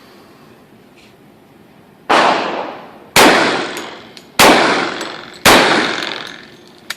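Four .45 ACP shots from a MechTech carbine conversion on an M1911A1, firing 200-grain lead wadcutters, about a second apart. Each shot has a long echoing tail, and a short click follows near the end.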